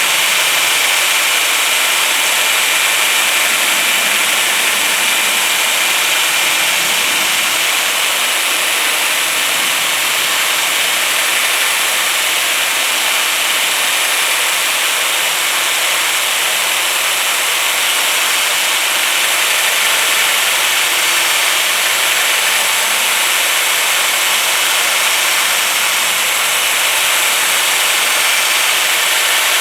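Electric drill running steadily with a 3-inch sanding disc pressed against aluminum: a continuous motor whine under the hiss of the abrasive on the metal.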